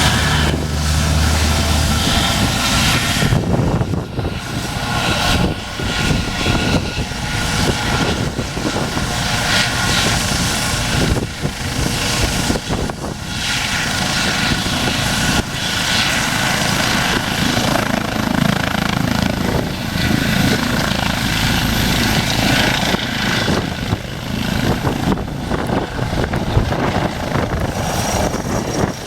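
Eurocopter EC135 P2 helicopter, with twin turboshaft engines and a shrouded fenestron tail rotor, running loud and close by: steady turbine and rotor noise with a few held tones, and heavy low rumble in the first couple of seconds.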